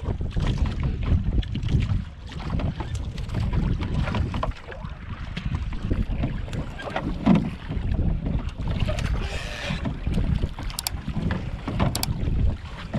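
Wind buffeting the microphone over sea water sloshing against a small outrigger boat, with light clicks and rustles from a nylon gill net being picked through by hand.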